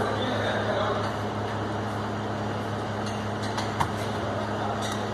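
Steady low workshop hum, with a few light metallic clicks about three and a half to four seconds in and again near the end as truck gearbox parts are handled on the bench.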